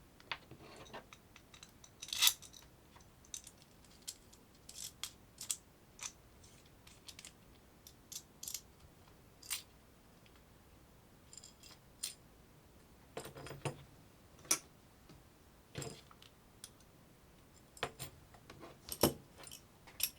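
Irregular light clicks and small metallic clinks of small hard parts being handled, some ringing briefly, a few louder clacks about two seconds in and near the end.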